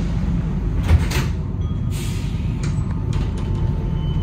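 Sliding doors of an Alstom NS-93 metro car closing, meeting with a knock about a second in, followed by short hisses and a few clicks over the train's steady low hum.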